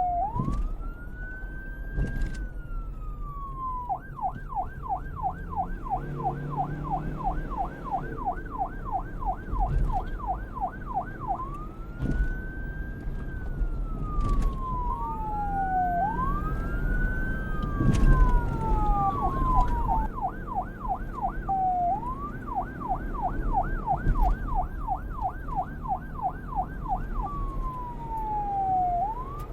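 Police car siren switching between a slow wail that rises and falls and a fast yelp of about three sweeps a second, back and forth several times. A steady low rumble runs underneath, with a few sharp knocks, the loudest about two-thirds of the way through.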